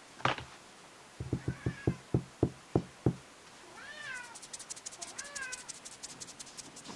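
Young Highlander lynx-hybrid kittens mewing: a faint mew about two seconds in, then two clearer mews that rise and fall in pitch about four and five seconds in. Before the mews come a sharp knock and then a run of about eight thumps over two seconds, and a rapid faint high ticking runs under the later mews.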